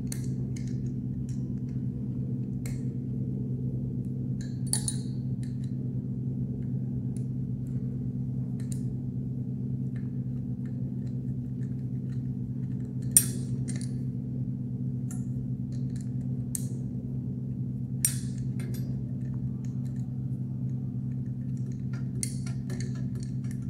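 Scattered small metallic clicks and taps of an Allen key and screws being worked on the metal housing of an explosion-proof light fitting, with two sharper knocks about halfway and three quarters of the way through. A steady low hum runs underneath.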